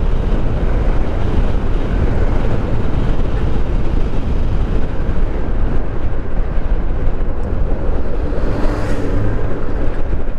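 Yamaha NMAX 155 scooter's single-cylinder engine running at road speed, mixed with steady wind rumble on the rider's microphone and tyre noise.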